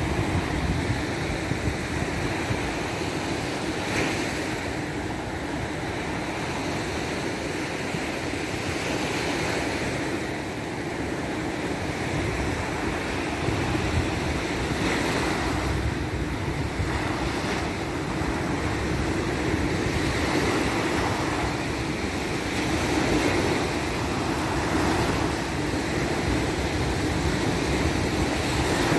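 Surf washing onto a beach, a steady rush of breaking waves that swells and eases, with wind buffeting the microphone.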